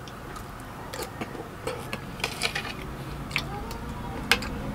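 Close-up eating sounds: scattered small clicks and taps from chewing and from handling food and utensils, coming more often toward the end.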